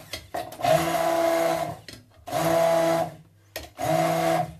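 Braun immersion blender switched on and off in short runs, about three bursts of a second each with brief gaps. It is blending tuna, anchovies and capers as oil is added to form an emulsion.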